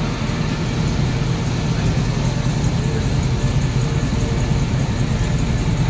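Engine of a 1936 Ford pickup idling steadily, a low, even running sound with fast regular pulses and no change in speed.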